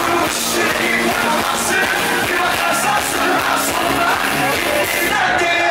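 Live band playing pop-rock, with a male lead singer singing into a microphone over drums and electric guitar.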